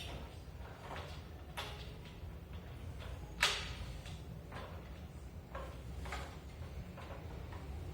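Kitchen door being worked: a series of light knocks and clicks, the loudest a sharp click about three and a half seconds in.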